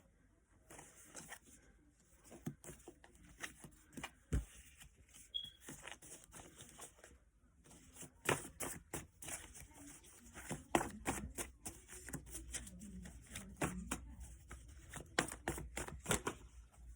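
Soft, irregular rustles and light clicks of cards being handled and shuffled, sparse at first and busier in the second half.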